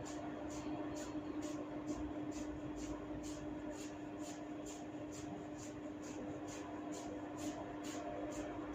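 Hair cracking: tufts of hair tugged in a steady rhythm, giving short sharp snaps about three times a second, over a steady hum.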